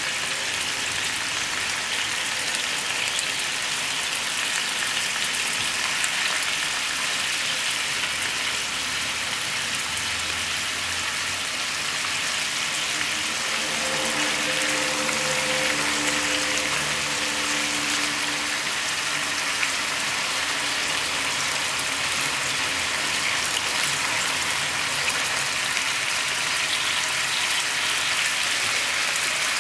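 Meat-wrapped potato rolls sizzling steadily in bubbling sauce and oil in a frying pan.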